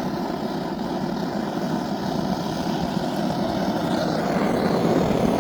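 Gas blowtorch flame running with a steady rushing noise as it chars a wood surface for shou sugi ban, growing slightly louder toward the end.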